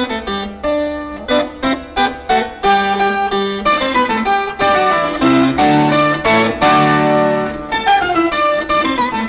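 Instrumental music on a plucked string instrument: quick picked notes, a stretch of longer held low notes in the middle, and falling runs of notes near the end.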